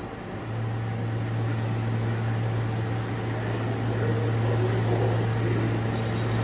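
A steady low electrical hum from a stationary subway train's equipment, coming on about half a second in and holding at one pitch.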